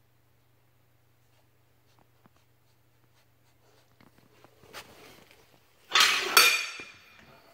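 Mother Labrador shifting on the whelping-box mat as she turns to nose her puppy: soft rustling that swells into a brief loud rustle and clink about six seconds in. Before that, a low steady hum.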